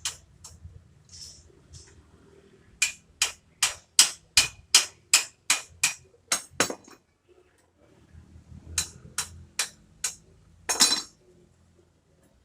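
Hammer blows on a wheelchair being repaired: a run of about ten sharp strikes at roughly three a second, then a few more after a pause, the last one longer.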